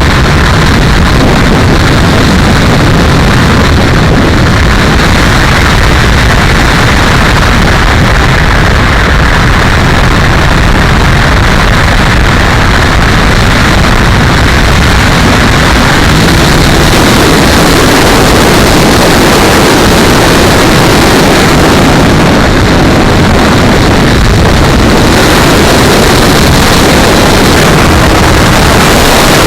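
E-flite T-28 electric RC warbird in flight, heard as a loud, steady rushing noise with no distinct motor tone standing out.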